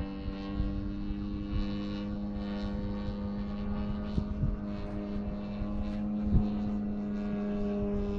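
Radio-controlled model aircraft engine running at a steady speed, one constant buzzing tone with its overtones and no change in pitch.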